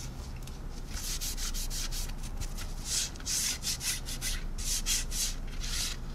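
Repeated wiping strokes over a plastic model aircraft wing, rubbing off a dried clay-based panel line wash: a run of soft, hissy rubbing strokes, roughly two a second.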